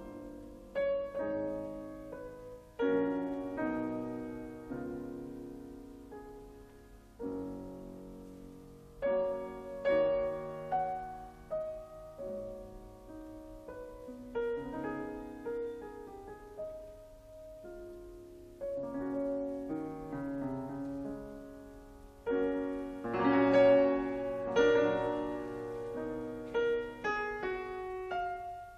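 Gentle solo piano music: slow chords struck and left to ring out, with a louder passage a little before the end.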